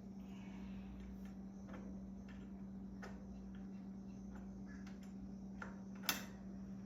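Light, irregular clicks and ticks of hand tools working on metal hardware as the garage door spring fittings are tightened, over a steady low hum, with one sharper click about six seconds in.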